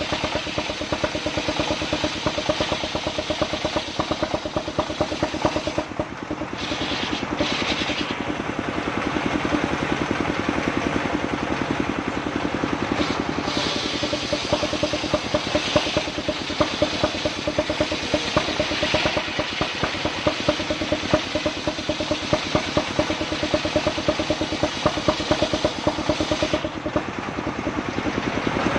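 Engine-driven circular sawmill running steadily, its blade cutting lengthwise through a mahogany log with a continuous hiss over the engine's rapid chugging. The cutting hiss drops out briefly several seconds in and again near the end as the log is repositioned.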